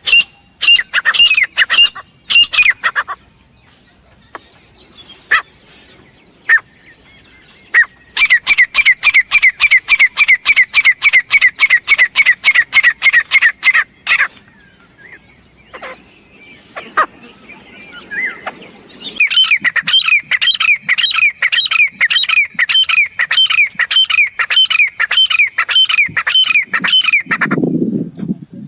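Grey francolin calling in long runs of rapid, evenly repeated shrill notes, about four a second, in three bouts with pauses between.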